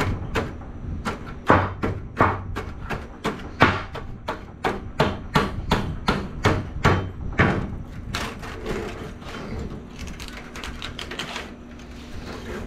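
Hammer blows on metal scrap in a steady rhythm, about three a second. After about eight seconds the blows stop and give way to a lighter rattle and clatter of small metal pieces.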